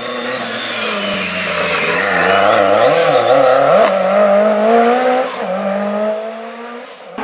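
WRC rally car engine revving hard under full throttle, its pitch dropping and climbing again several times with quick gear changes, then fading near the end.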